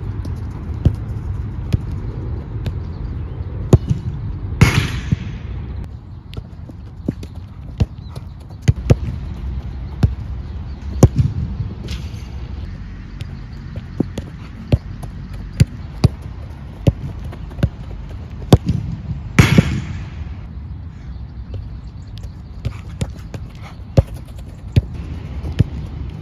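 A football being kicked and touched on artificial turf: sharp single thuds at an irregular pace, about one a second, over a steady low rumble. Twice there is a louder, longer crash, about a fifth of the way in and about three quarters of the way in.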